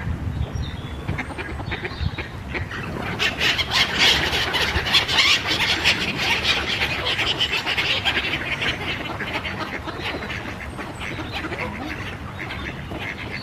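Mallards quacking and black-headed gulls calling over one another in a flock of waterbirds crowding in for food. The calling is densest through the middle few seconds.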